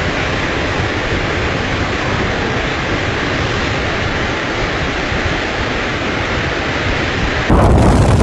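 Snowstorm wind blowing steadily, a rushing noise without tones or knocks that gets louder and heavier near the end.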